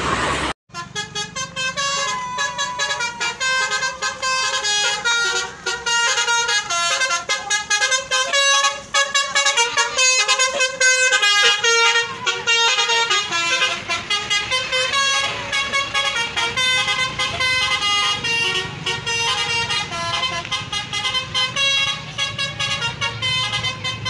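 Telolet basuri musical bus horn playing a quick melody of stepping notes, nearly without a break, over a low engine rumble; the horn cuts out briefly about half a second in, then carries on.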